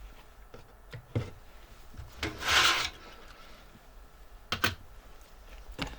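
Parts being slid out of a computer case: a scraping rub of about half a second, roughly two and a half seconds in, with a few light knocks and clicks around it.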